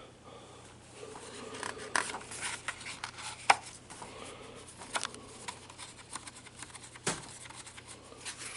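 Paper pages of a picture book being handled and turned: soft rustling with several sharp snaps and taps, the loudest about three and a half seconds in.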